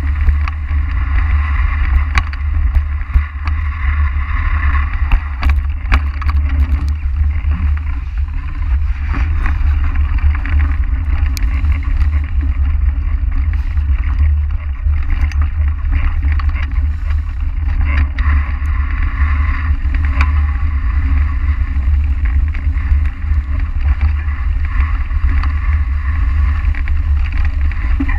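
Mountain bike riding fast over a leaf-covered dirt trail: tyre noise through the dry leaves, with frequent rattles and clicks from the bike over bumps, under heavy wind rumble on the bike-mounted camera's microphone.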